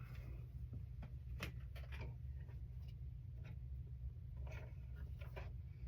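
Faint, scattered clicks and rustles of quilting fabric being handled and positioned at a sewing machine, over a steady low hum.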